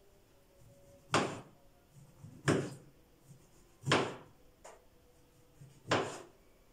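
A knife slicing through a peeled orange onto a cutting board: four separate cuts, each a short slice ending on the board, about a second and a half apart.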